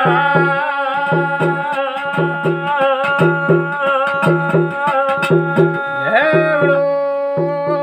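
Garhwali jagar folk music: a long held melodic note that slides upward about six seconds in, over a steady hand-drum beat of about three strokes a second.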